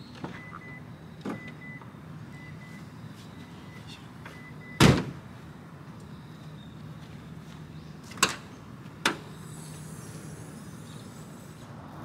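A loud single thump about five seconds in and two sharp clicks a little later, over a steady low hum.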